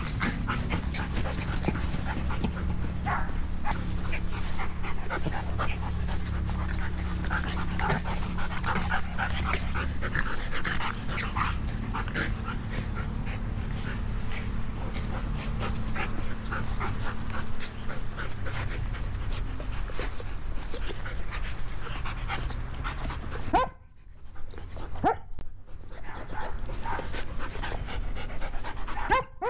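Dogs panting in quick, short breaths during rough play, over a steady low hum. The sound cuts out briefly twice near the end.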